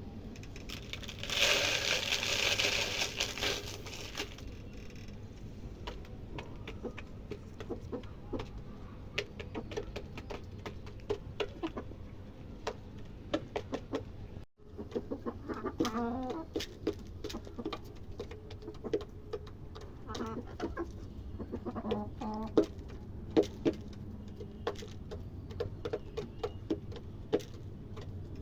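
Desi chickens clucking in short bouts, among many small sharp clicks and ticks, with a loud burst of rustling noise lasting about three seconds near the start.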